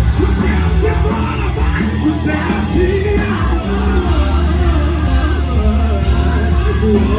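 Loud live worship music with a heavy steady bass, and a congregation singing along and shouting.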